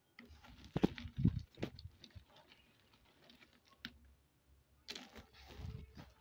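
Hard, dry chunks of edible clay (nakumat) clicking and knocking together as they are handled, with a few louder knocks about a second in and a short rustle near the end.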